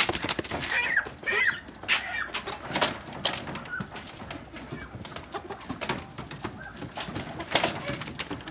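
Freedom Ranger chickens clucking and giving short squawking calls, amid scattered sharp knocks and rattles.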